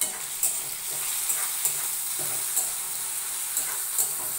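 Onion, tomato and chilli masala frying in oil in a metal kadai, with a steady sizzle. A spatula stirs it, scraping and tapping against the pan at irregular moments.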